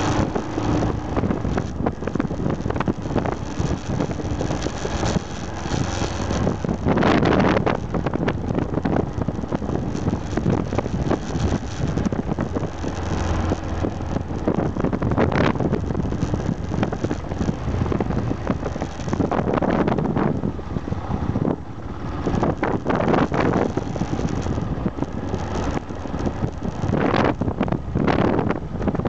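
Aprilia Pegaso 650 Strada's single-cylinder engine running as the motorcycle is ridden, mixed with wind noise on the microphone that swells in several short surges.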